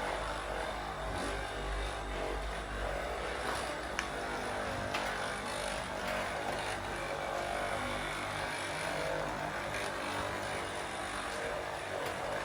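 A steady low mechanical hum, with two short sharp clicks about four and five seconds in.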